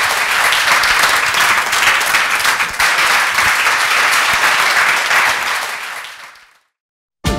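Audience applauding steadily, which fades out about six seconds in; after a moment of silence, music starts just at the very end.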